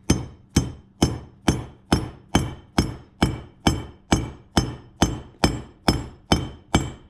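Steady hammer blows, about two a second, on a hardened-steel Allen key used as a drift, driving the cross pin out of a Jaguar Mk II differential carrier; each strike rings briefly with a metallic ring.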